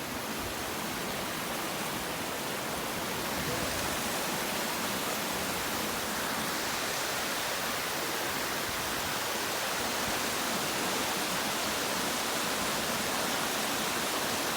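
Steady rush of flowing water, a stream or waterfall, growing a little louder over the first few seconds.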